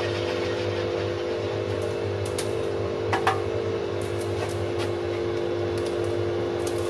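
Pegas fine-cut bandsaw running idle with a steady hum, its thin blade not in the wood. Two sharp clicks from handling on the saw table about three seconds in.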